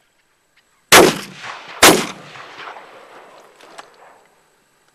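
Two hunting shotgun shots about a second apart, each followed by an echo that dies away over the next two seconds or so.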